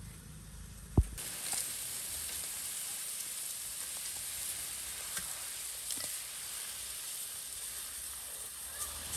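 A single thump about a second in, then steady sizzling with small crackles: duck meat cooking in hot fat.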